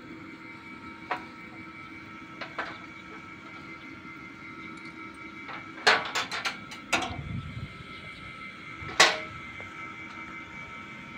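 Several sharp knocks and clacks over a steady faint hum: single ones early, a quick cluster about six seconds in, and the loudest single knock about nine seconds in.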